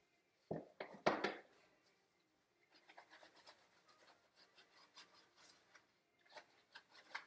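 Gloved hands rubbing thick shampoo lather into a wet standard poodle's coat: soft, scratchy rubbing, with a brief louder burst of sound about a second in.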